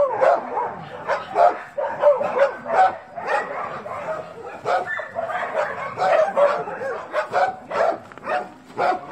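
Dogs barking and yipping, many short barks in quick succession.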